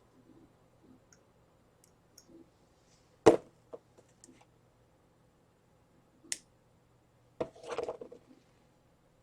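Scattered clicks and taps from small hand tools and parts being handled. There is one loud, sharp click about three seconds in, another single click a few seconds later, and a brief clatter of clicks near the end.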